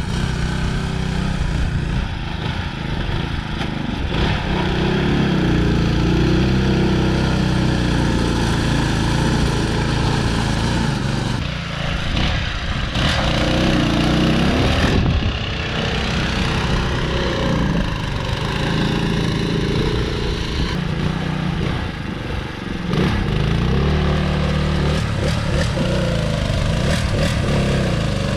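Riding mud mower's engine running under load in mud, its pitch rising and falling as the throttle and load change.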